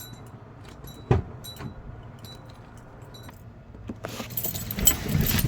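Car keys jingling with light metallic clicks and brief ringing, and a single knock about a second in. Louder rustling and knocking starts about four seconds in.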